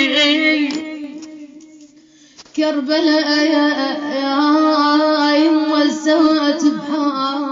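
A woman's voice in a wordless Shia lament (latmiya), holding long, slightly wavering notes. The note fades out over the first two seconds, and after a brief lull a new held note starts abruptly about two and a half seconds in.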